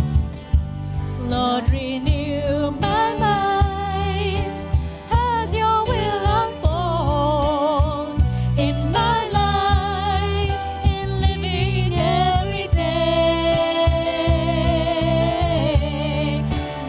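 Worship band music: a sung melody with vibrato on held notes over a steady bass and keyboard accompaniment.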